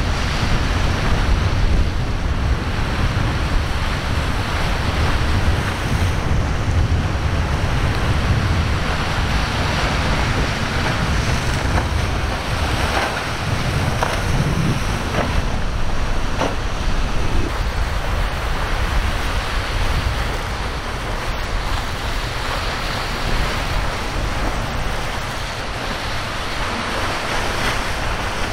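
Strong wind buffeting the microphone with a heavy rumble, over the steady wash of breaking surf and choppy sea.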